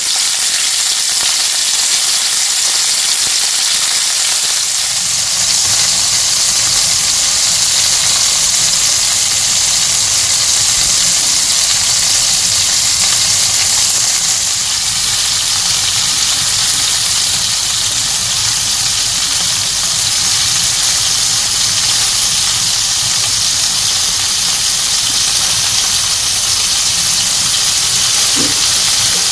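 A loud, steady hiss that switches on abruptly and holds unchanged, with a faint low hum beneath it.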